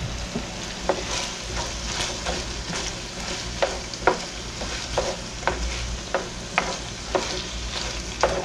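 Ground beef and chopped onion sizzling in a skillet while a wooden spatula stirs them, with a steady frying hiss and repeated short knocks and scrapes of the spatula against the pan, one or two a second.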